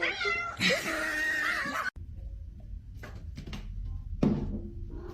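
A cat meowing: a long drawn-out meow in the first two seconds that cuts off abruptly, then a quieter stretch with faint noises and a short cry a little after four seconds in.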